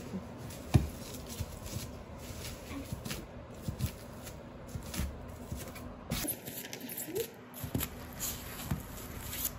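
Hand tools jabbing and twisting into rigid foam board to widen holes: irregular taps, scrapes and crumbly rustling, with one sharp knock about three-quarters of a second in.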